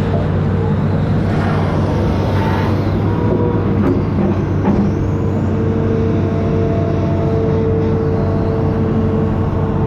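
Amphibious excavator's diesel engine running steadily with a steady whine over it, and a few brief rushes and a knock in the middle.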